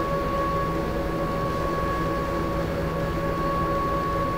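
A steady machine hum: a constant high-pitched tone and a few lower tones over a low drone, unchanging throughout.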